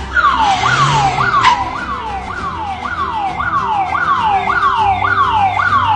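Emergency vehicle siren in a fast yelp: each cycle a quick rise and slower fall in pitch, about two cycles a second. A brief sharp sound cuts in about a second and a half in.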